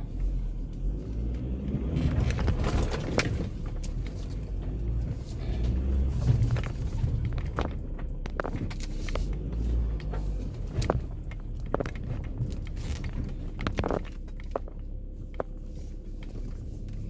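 Off-road vehicle engine running as it crawls over rough ground, with scattered clicks and knocks throughout.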